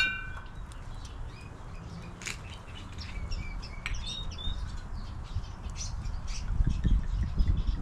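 Small birds chirping in short, scattered calls, over a low rumble of wind on the microphone that grows louder near the end.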